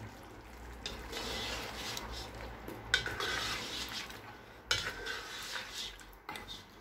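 A spoon stirring thick, simmering mutton curry in a granite-coated nonstick pot, with a wet scraping sound and a few knocks of the spoon against the side of the pot.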